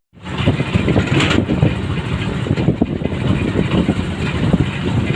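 Motorcycle running along the road with wind rushing over the microphone: a steady low rumble full of crackling buffets. It cuts in after a split-second of silence.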